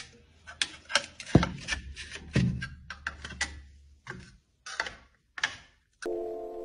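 Hand trowels clacking and scraping on a stone tile floor as someone walks on them, an irregular run of knocks with two heavier thuds in the middle. About six seconds in, it cuts to steady musical tones.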